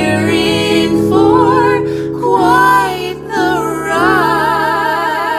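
A woman singing a show tune over sustained instrumental accompaniment, ending on long held notes with wide vibrato: the final phrase of the song.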